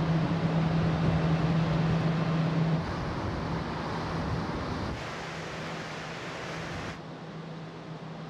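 Steady low hum of the Hankyu Ferry Settsu's engines and funnel exhaust, heard on the open deck with wind rushing past. The hum is strongest for the first three seconds, and the sound drops in steps about three, five and seven seconds in.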